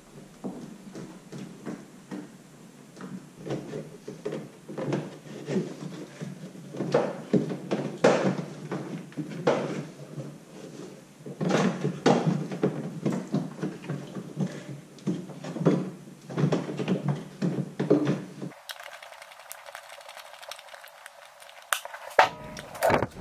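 Hands working in an SUV's rear cargo area: irregular knocks, clicks and rattles as wiring, trim and tools are handled. It goes quieter for a few seconds near the end, then a few sharper clicks.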